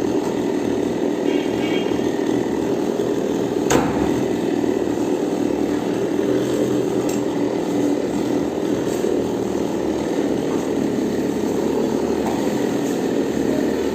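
Chainsaw engine running steadily at an even speed, with one sharp knock about four seconds in.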